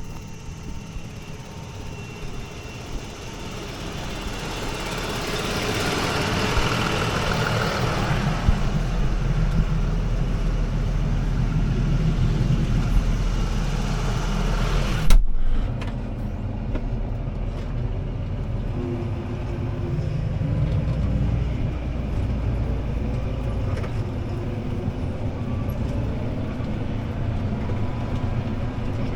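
CLAAS ARION 650 tractor's six-cylinder diesel engine running under load, pulling a disc harrow, growing louder over the first several seconds with a steady low rumble. About halfway there is a sharp clunk, after which the sound is duller, with the engine note rising and falling a little.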